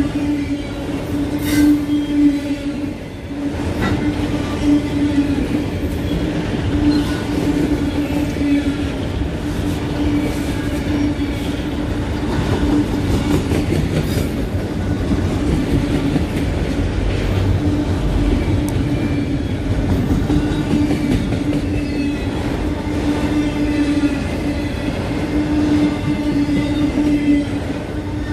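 A CSX freight train's multilevel autorack cars rolling past at a grade crossing. The wheels on the rail make a steady, loud rumble, with a continuous low tone humming through it.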